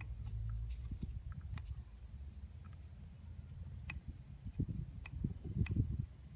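Opel Astra H's Z16XEP 1.6 Twinport four-cylinder running with a low steady rumble, over which come irregular sharp clicks and knocks about once or twice a second: the knocking of worn Twinport intake flaps.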